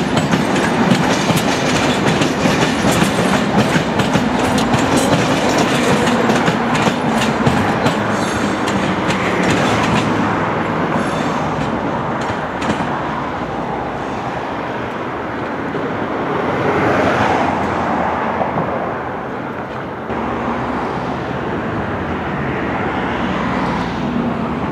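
Passenger coaches rolling through a set of switches: a rapid clickety-clack of wheels striking the points and rail joints over a steady rumble. The clicks thin out after about ten seconds, leaving a smoother rolling noise.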